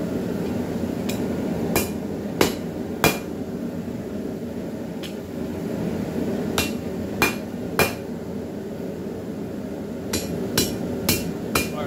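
Hand hammer striking a hot 3/8-inch steel bar on an anvil: three bursts of three or four blows, about two a second, with pauses of a few seconds between them, over a steady low rush.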